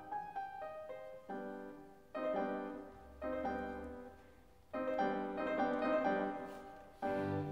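Slow solo piano music: chords struck every second or two and left to fade.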